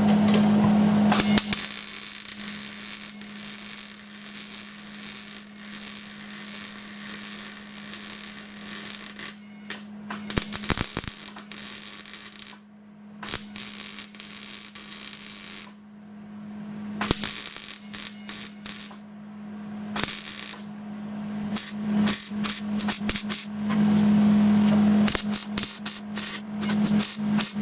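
Electric welder arc crackling and hissing as a broken weld nut is welded back inside a vehicle's lower frame: one long bead, then a series of short welds that start and stop, over a steady low hum.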